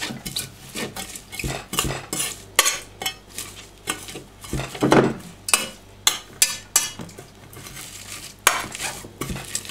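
Metal spoon scraping and clinking against the bottom of an enamel pot in irregular strokes as it presses chopped dill and green onion to squeeze out their juice.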